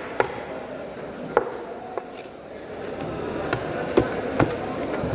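Knife chopping through fish on a wooden cutting board: about five sharp knocks at uneven intervals, three of them close together near the end, over a steady background hubbub.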